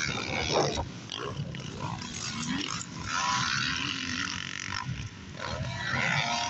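Several motocross bikes' engines revving on the track, the pitch climbing as riders open the throttle about three seconds in and again near the end.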